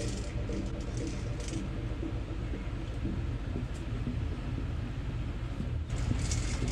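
A steady low rumble with light rustling; the sound changes abruptly near the end, turning brighter and hissier.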